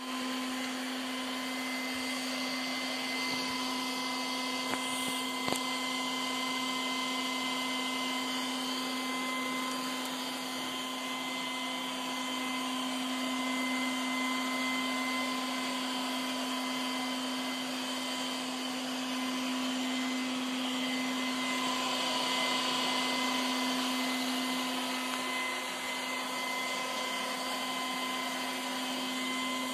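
Milagrow Sea Gull robot vacuum cleaner running: a steady motor hum over a whirring hiss, with two small clicks about five seconds in.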